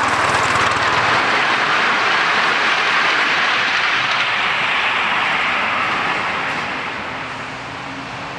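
Miniature ride-on steam locomotive passing with its train, a loud steady hiss of steam over the running of the wheels, fading away as it moves off.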